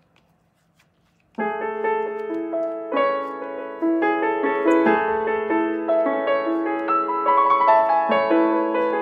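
Background piano music that starts suddenly about a second and a half in, after a near-silent moment, with notes changing every half-second or so.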